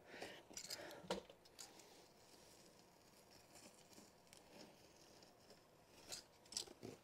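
Faint scraping of a utility knife slicing through carpet underpad along the stair's front edge, in short strokes during the first second or so and again briefly near the end; between them, near silence.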